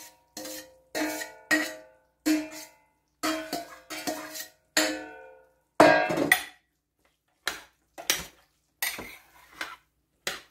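A stainless steel bowl knocked repeatedly against the rim of a slow cooker crock to shake out chopped onions and garlic, each knock ringing briefly, about eight knocks in the first five seconds. Then a loud clank, and a metal spoon clanking and scraping in the crock as the pot is stirred.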